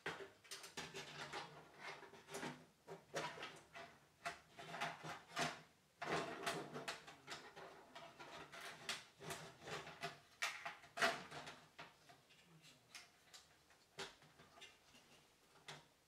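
Hands fitting a CPU cooler and parts inside a steel PC case: irregular clicks, knocks and rattles of plastic and metal handling. The sound is busiest through the first two-thirds, with the sharpest knock about eleven seconds in, and thins to a few scattered clicks near the end.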